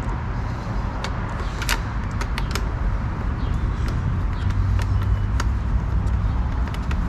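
Scattered light clicks and taps of plastic pressure-washer parts being handled as a hose fitting with an O-ring is worked into place, over a steady low rumble.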